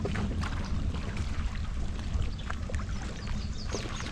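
Wind buffeting the microphone as a steady low rumble, with water lapping and splashing and a few short high chirps near the end.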